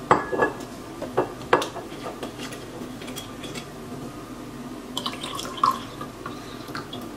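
A few knocks of a glass bottle being handled, then Welch's sparkling white grape juice being poured from the bottle into a glass champagne flute of orange juice, splashing as it goes in, starting about five seconds in.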